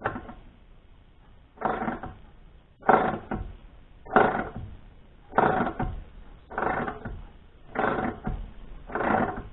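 Ratchet wrench with a 9/16 socket being worked back and forth on a sawmill bolt. Each return stroke gives a short burst of ratchet clicking, about eight strokes at a steady pace of roughly one a second.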